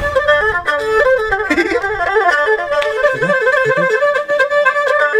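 Erhu, the two-string Chinese bowed fiddle, playing a quick melody of rapidly changing notes.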